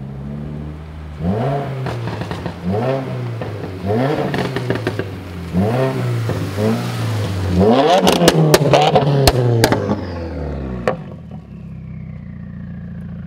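2016 Subaru WRX's 2.0-litre turbocharged flat-four, with a catted downpipe and muffler delete, idling and then blipped in about five quick revs that rise and fall. A longer, louder rev follows with a string of sharp exhaust cracks. It then settles back to a steady idle, with a faint whine falling in pitch.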